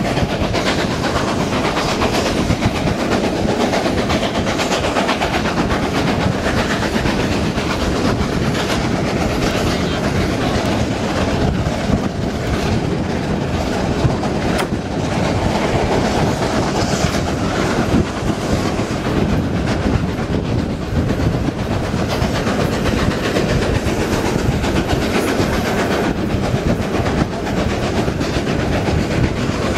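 Two GWR Castle class 4-6-0 steam locomotives working hard at the head of a train up a steep gradient, heard through an open carriage window: a steady din of exhaust, wheel clatter on the rails and wind.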